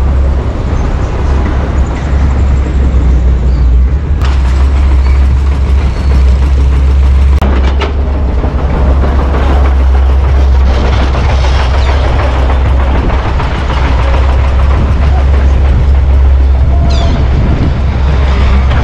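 Heavy diesel engines of dump trucks and an excavator running at an earthworks site, a steady low rumble. Two brief sharp knocks come about four and seven seconds in.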